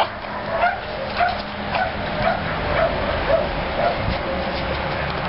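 Small dog yapping during play, a short high yap about twice a second, steady throughout.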